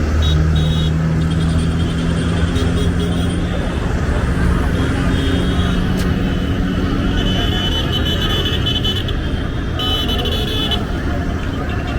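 Busy street traffic: vehicle engines running close by with a steady low hum, horns tooting now and then, and people's voices in the background.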